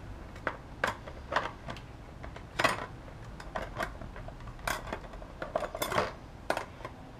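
Motorcycle clutch plates clinking and clattering against each other and the clutch basket as they are fitted one by one, a string of sharp metallic clicks with short gaps between.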